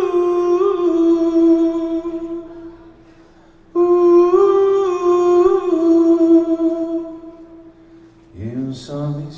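A man's voice humming long, wordless held notes in two phrases, with a short pause between them. Acoustic guitar strums come in near the end.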